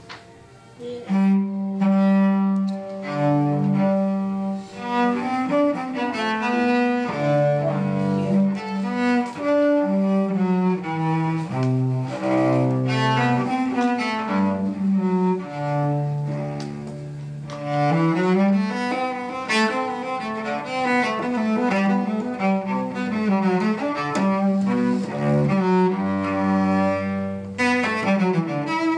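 Solo cello played with the bow, starting about a second in and going on as a continuous line of changing notes.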